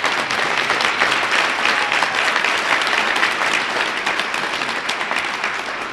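Audience applauding: many hands clapping together, dying away near the end.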